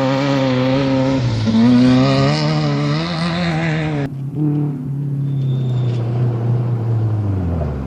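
Off-road race vehicle engine running hard as it passes, its pitch wavering up and down with the throttle. About four seconds in the sound changes abruptly to a duller engine note, which falls in pitch near the end as the vehicle moves away.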